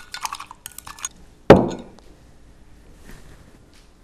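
A utensil clinking rapidly against a small glass cup as sushi vinegar of rice vinegar, sugar and salt is stirred, stopping about a second in. Then one loud knock on the table, followed by faint handling noises.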